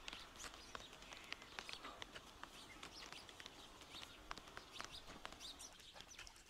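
Faint outdoor ambience with small birds chirping in short, scattered calls.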